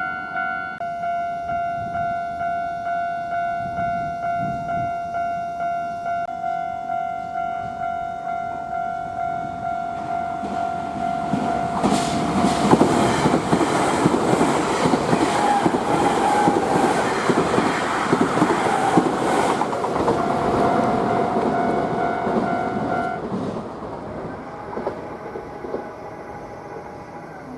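Japanese level-crossing bell ringing steadily, about two strikes a second. From about 11 seconds in, a Nankai Limited Express 'Southern' electric train (7100 and 10000 series) passes through the crossing, its wheels clattering over the rail joints. The bell stops about 23 seconds in and the train noise fades away.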